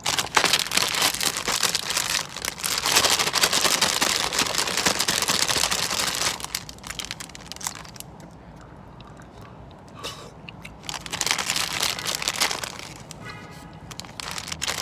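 Wrapper crinkling as bubblegum is unwrapped, in two spells of dense crackling: a long one over roughly the first six seconds and a shorter one about ten seconds in.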